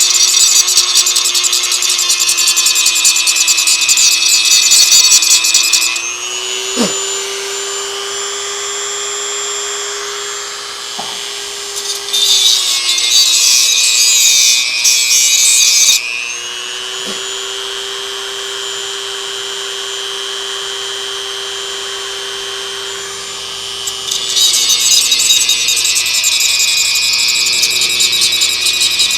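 Dremel rotary tool with a small reinforced cutting disc grinding rust out of a U-joint yoke bore. It cuts in three bouts, near the start, about halfway and near the end, and in between the motor spins freely with a steady whine.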